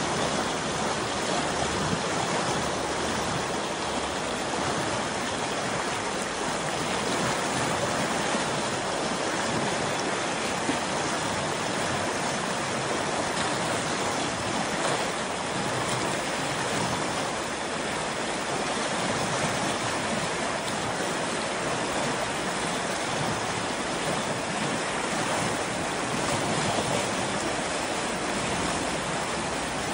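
The Spöl, an Alpine river running high and muddy, rushing over rapids: a steady, unbroken wash of fast water.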